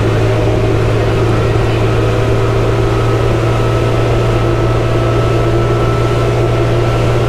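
Side-by-side UTV engine running at a steady, constant speed: an even low drone with a faint steady high tone above it.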